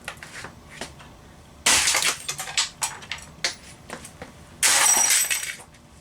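Blows smashing a Canon 8mm camcorder's lens, with glass breaking and crunching. There are two loud crashes about three seconds apart, the second with a ringing glassy shatter, and smaller clicks and tinkles of falling pieces in between.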